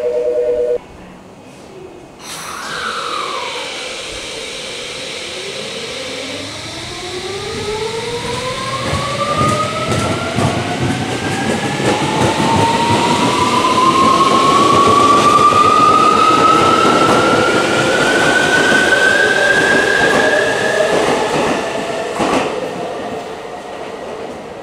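Tokyo Metro 17000 series train pulling out, its Hitachi full-SiC MOSFET VVVF inverter and sealed eight-pole permanent-magnet motors whining. Several tones rise together in pitch as the train accelerates, loudest mid-way, then fade near the end. A steady two-note electronic tone sounds in the first second.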